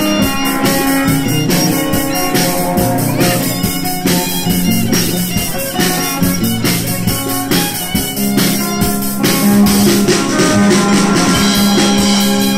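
Live amplified rock played by a young band: electric guitar and drum kit keeping a steady beat, with a violin among the instruments.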